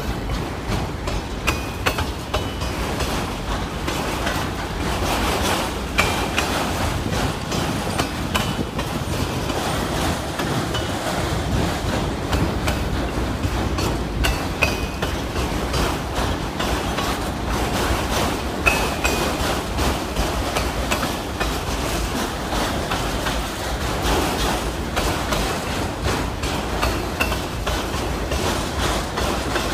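Autorack freight cars of a long train rolling past: a steady rumble with the clatter of steel wheels over the rail joints, and brief high squeals every few seconds.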